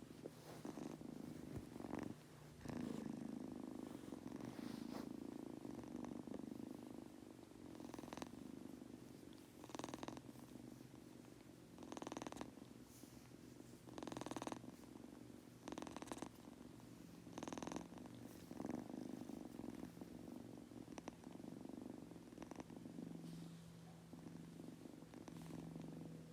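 Munchkin kitten purring steadily as it falls asleep, with a soft breathy rasp every couple of seconds.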